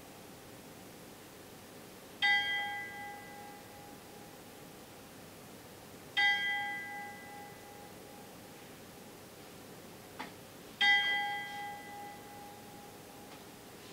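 Bell in a wooden bell tower, rung by a cord pulled by hand: three single strikes about four seconds apart, each ringing out and fading over a second or two.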